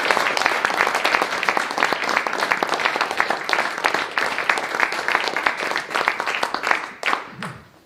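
Audience applauding, a dense patter of many hands clapping that thins out to a few last claps and dies away near the end.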